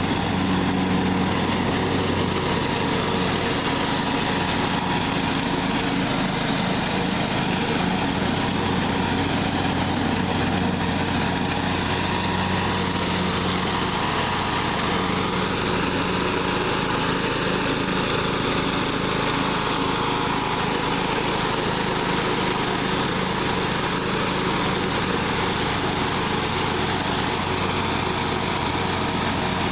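John Deere LA115 riding lawn mower's 19.5 hp Briggs & Stratton engine running steadily at an even speed.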